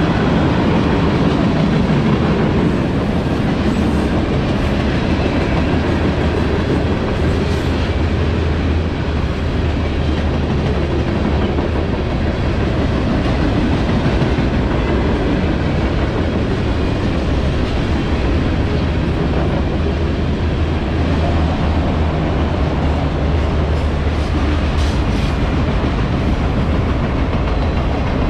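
Freight train cars rolling steadily past at trackside: steel wheels running on the rails with a continuous low rumble.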